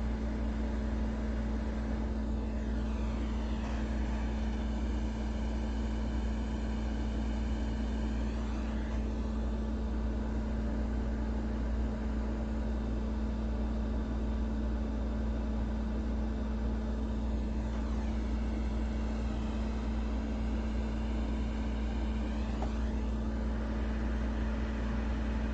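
Steady blowing noise from a fan or blower over a constant low hum. The tone of the hiss shifts in slow sweeps twice.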